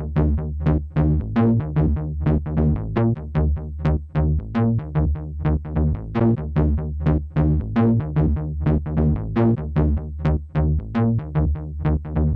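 Electronic synth bass line: a fast, even sequence of short plucked notes, about four a second, shifting between low pitches.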